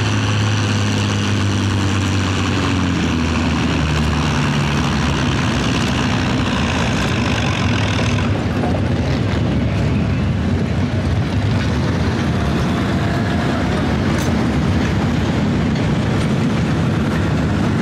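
Oliver farm tractor's diesel engine running hard under full load while dragging a weight-transfer pulling sled. The engine note drops a few seconds in as the load builds, then stays a loud, rough, steady rumble.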